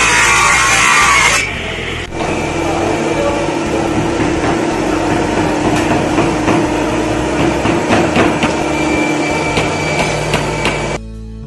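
Table saw cutting wood, loud for the first second or so. Then the machine runs on with a steady hum while wooden pieces are knocked and tapped against it and the bench.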